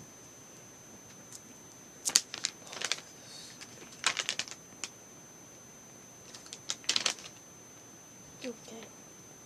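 Kinetic sand packaging crinkling and clicking as it is handled and opened, in short bursts of crackles about two, four and seven seconds in.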